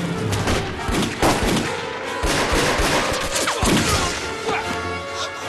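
Battle sound effects from a war drama: dense, rapid gunfire with dramatic score music underneath. The shooting thins out near the end as the music comes forward.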